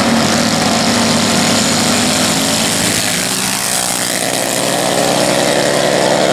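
Two small minibike engines running hard as the bikes accelerate away from the line in a drag race, the engine pitch climbing over the last couple of seconds.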